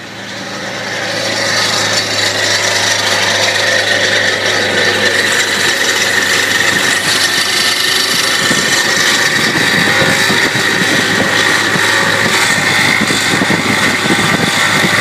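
A 1991 Ford F-150's 4.9-litre inline-six is idling steadily, with a loud, high-pitched noise from the alternator area that builds over the first couple of seconds and then holds. The noise comes from the alternator pulley working loose and coming off its shaft, a fault that also causes the truck's voltage drop.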